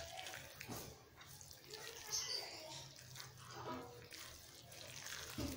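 Faint wet squishing of a hand kneading a moist minced-chicken mixture in a bowl.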